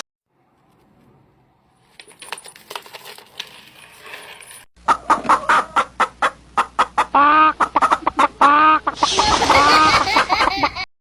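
An animal giving many short calls in quick succession, each rising and falling in pitch, loud from about five seconds in after a few quieter clicks.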